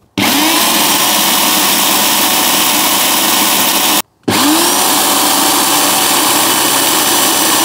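Electric drill turning a bit through a flexible-shaft extension, drilling into a steel hinge pin seized in its metal sleeve: two long steady runs, each spinning up quickly, with a brief stop about four seconds in.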